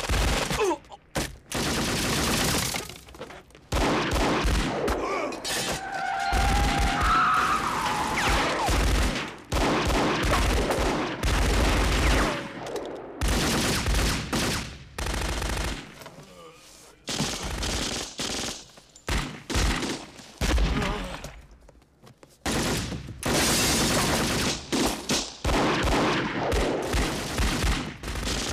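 Heavy gunfire in a street shootout: rapid volleys of shots from several guns, broken by short lulls.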